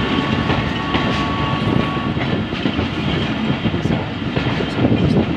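Passenger train running along the track, heard from an open carriage window: a steady rumble of wheels on rails with wind rushing in. A thin steady high tone sounds over it and stops about two seconds in.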